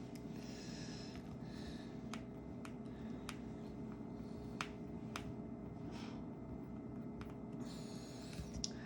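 Small metal repair tool clicking and scraping against an iPhone 7 Plus as it tries to open it, in about a dozen irregular light clicks with a few short scrapes; the tool is slipping without getting a grip, which the repairer puts down to its worn tip.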